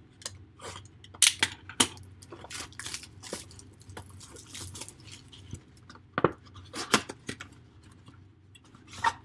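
Plastic shrink wrap being slit with a utility knife and stripped off a cardboard trading-card box, which is then opened: irregular crinkles, crackles and sharp clicks, loudest a little after one second and again around six to seven seconds in.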